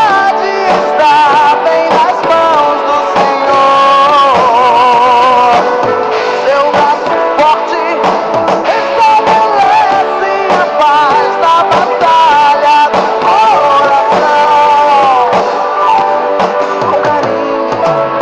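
Rock-style worship song playing: a singer holding notes with vibrato over guitar and drums.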